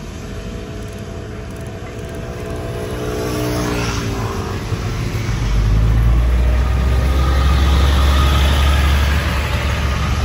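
Blue DR diesel railcar train passing through a station without stopping. The engine note grows louder and drops in pitch about four seconds in. A heavy low rumble of engines and wheels is loudest from about halfway and eases slightly near the end.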